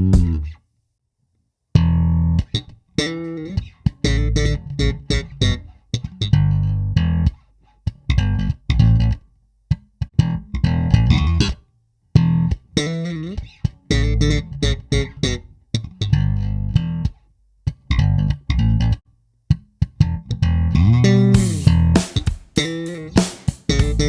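FOALS FJB7 electric bass guitar played solo in short phrases of plucked notes, with brief pauses between phrases. A few notes slide in pitch.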